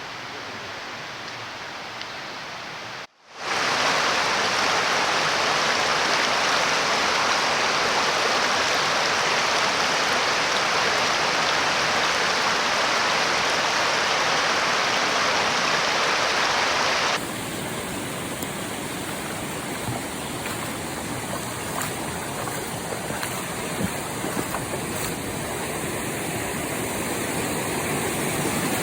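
Mountain stream rushing over rocks: a steady rush of water that jumps louder about three seconds in and drops to a quieter, thinner rush after about seventeen seconds.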